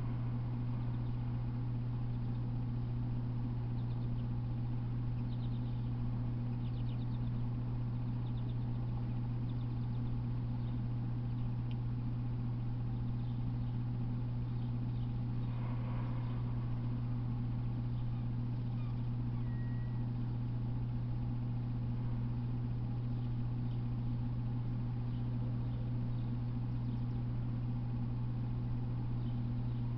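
A steady low hum, with faint bird chirps now and then and a short high whistle about twenty seconds in.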